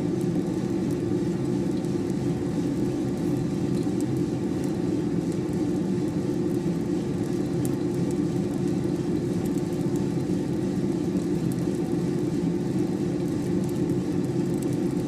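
Diedrich drum coffee roaster running steadily during a dark roast, its rotating drum and fan giving a constant low hum, with faint scattered ticks of the beans cracking.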